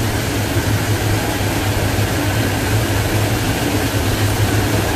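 Kitchen exhaust fan running: a steady low hum under an even rushing noise.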